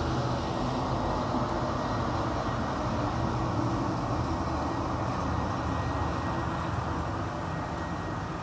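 Steady engine rumble with a low hum, easing off slightly near the end.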